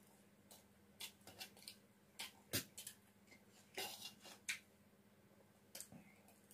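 A steel spoon scraping and clinking against a steel plate while scooping up fried rice: a scatter of short, sharp clicks, the loudest about two and a half seconds in, with a longer scrape near the middle.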